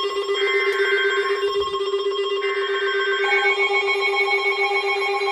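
Electronic emergency alert attention tone: several held pitches with a fast ringing flutter, sounding steadily, with a further pitch joining about three seconds in.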